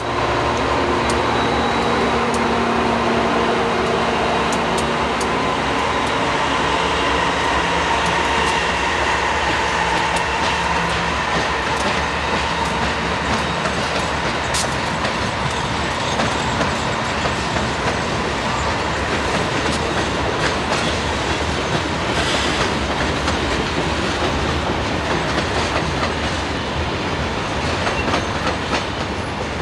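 Westbound manifest freight train passing close by. A steady engine drone is heard for about the first twelve seconds, followed by the rolling noise of the cars with repeated wheel clicks over the rail joints.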